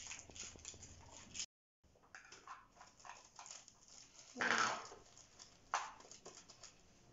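Clear plastic ornament balls clicking and rattling as they are handled and shaken, with a louder shaking rustle about four and a half seconds in.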